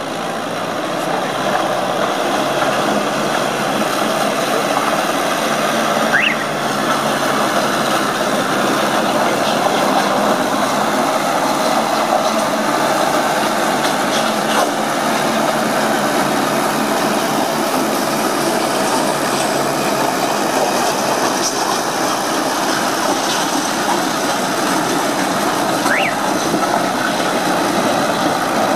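Engine of a 1947 vintage farm tractor running steadily under load as it drags a weight-transfer pulling sled. The engine builds up over the first couple of seconds, and a brief rising squeal is heard twice.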